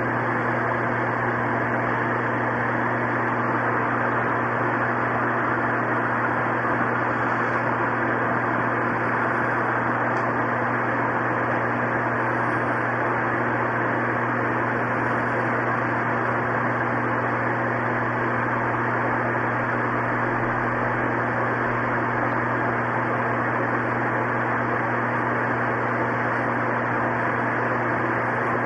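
Steady, even hiss with a low electrical-sounding hum underneath, unchanging throughout.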